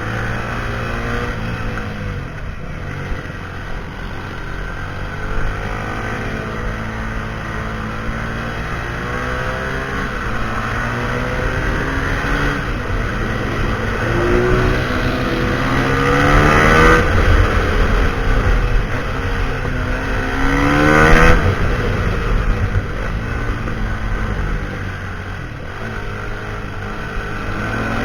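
Husqvarna SMR 511 supermoto's single-cylinder four-stroke engine running through a full Akrapovic exhaust, its pitch climbing sharply twice as it is revved hard, the second time loudest.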